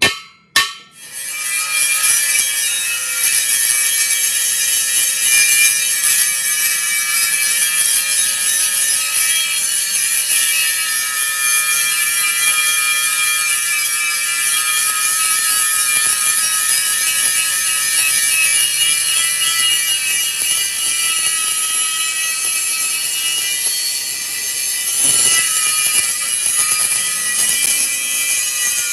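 Power grinder grinding metal on a truck wheel rim: a loud, steady whine over a high hiss that starts about a second in, after two sharp knocks.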